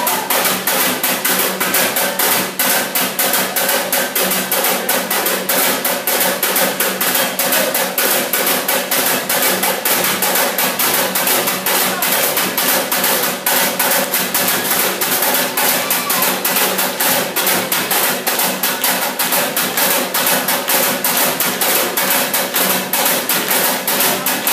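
Fast, steady percussion beat of evenly spaced sharp knocks, the drumming for a Samoan seated group dance.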